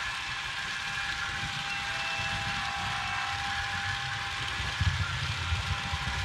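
Model trains running on the layout: a steady whir of motors over a low rumble of wagons rolling on the track, with a few louder knocks about five seconds in.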